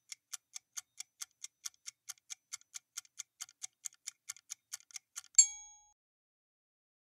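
Countdown timer sound effect: quick clock ticking, about four or five ticks a second, cut off about five seconds in by a single bright chime, the cue for the correct answer being revealed.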